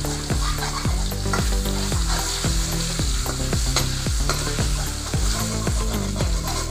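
Borali fish frying in hot oil in a kadai, a steady sizzle with crackling, while a steel spoon stirs and bastes the pieces. A low repeating thump runs underneath.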